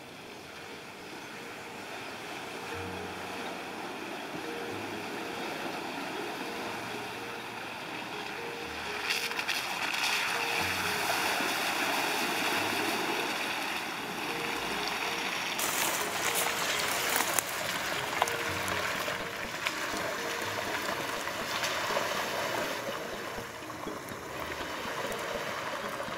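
Honda Ridgeline TrailSport pickup driving through muddy puddles, its tyres splashing and sloshing water, with the engine running under it. It grows louder over the first several seconds as the truck comes closer.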